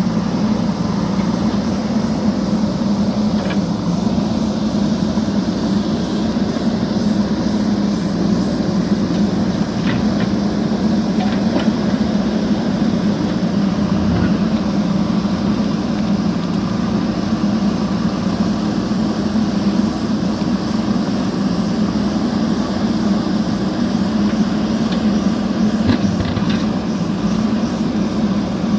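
JCB backhoe loader's diesel engine running steadily with a low, even drone, with a few faint knocks now and then as it works.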